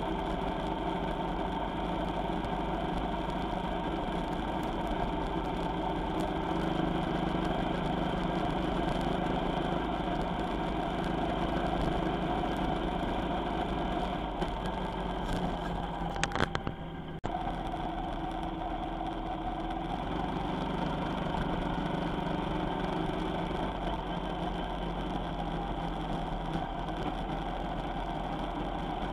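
A vehicle engine running steadily, with a brief cluster of louder knocks about sixteen seconds in that ends in a sudden short dropout.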